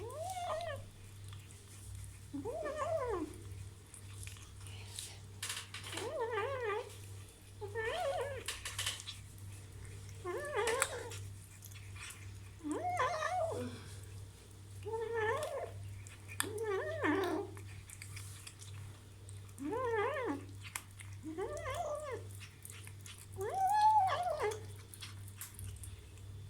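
Kitten crying out over and over while eating meat: about a dozen short calls, one every couple of seconds, each rising and then falling in pitch. A steady low hum runs underneath.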